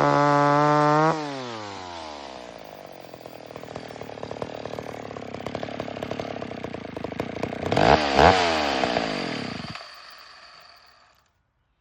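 McCulloch 1010 two-stroke chainsaw held at full throttle, then let off about a second in. The engine winds down to a rough, ticking idle, gets a quick throttle blip near eight seconds, and then dies out and stops.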